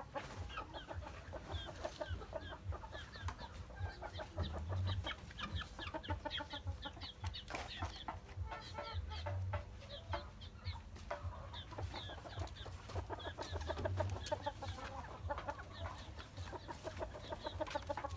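Chickens clucking and chirping: many short, scattered calls that go on steadily, without a full crow.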